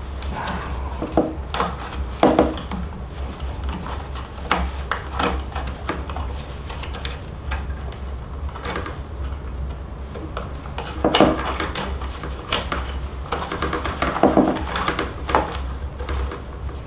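Handling sounds from working loose the rawhide lacing and knots of a hand-made frame drum: scattered small clicks, taps and knocks as the drum's wooden frame is moved, over a steady low hum.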